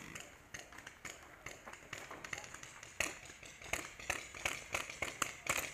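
Paintball markers firing in scattered sharp pops, sparse at first and coming several times a second from about three seconds in.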